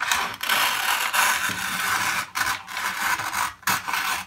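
Scissors cutting through kraft pattern paper in several long strokes, with short breaks between them as the blades reopen.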